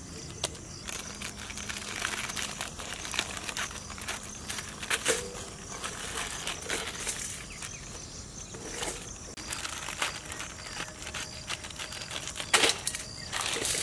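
Plastic Maggi noodle packets crinkling as they are handled, torn and snipped open with scissors, in a run of short rustles and clicks with a few louder crackles.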